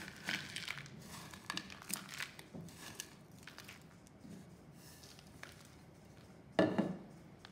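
A plastic spatula scrapes and scoops crumbled jaggery around a ceramic bowl, the small dry pieces rustling and clicking. Near the end there is a louder rush as the jaggery is tipped into a stainless-steel mixer jar.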